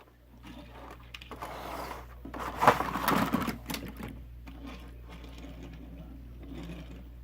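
Hot Wheels die-cast '55 Chevy gasser toy car being rolled on a hard surface: its small wheels and axles make a steady whirring rumble, loudest with a few clicks about three seconds in. It rolls freely.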